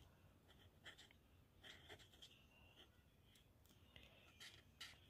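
Faint scratching of a marker tip on paper, in a few short strokes.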